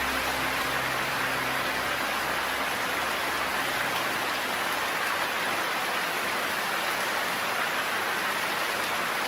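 Steady rain, an even unbroken hiss, with a few low held music notes dying away in the first few seconds.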